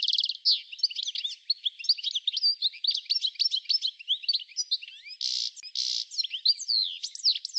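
Many small birds chirping and twittering at once, dense overlapping quick calls with nothing deep underneath, and two short buzzy rasps a little past five and six seconds in.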